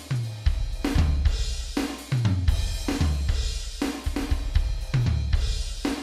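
Electronic drum kit played in a full groove, with kick drum, snare, hi-hat and cymbal crashes, over music with a bass line.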